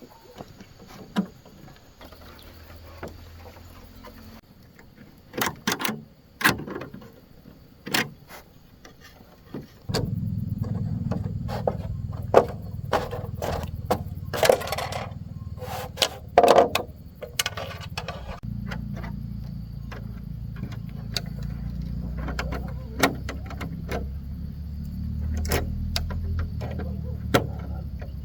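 Scattered knocks and clicks, with a steady low motor hum starting about ten seconds in and running under them.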